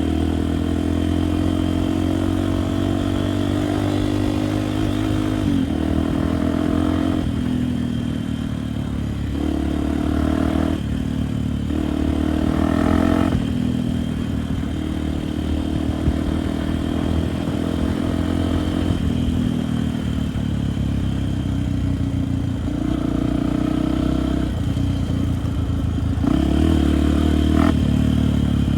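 Enduro motorcycle engine running under way, its pitch climbing and dropping repeatedly with throttle and gear changes. A short sharp click near the end.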